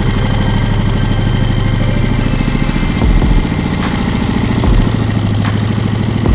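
A small engine running steadily, with a few low thumps and sharp clicks over it.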